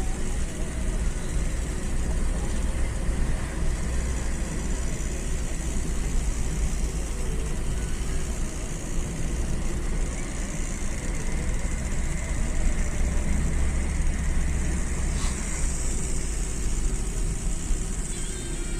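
A car driving along a winding mountain road, heard from inside: a steady low rumble of engine and tyre noise, with a brief click about 15 seconds in.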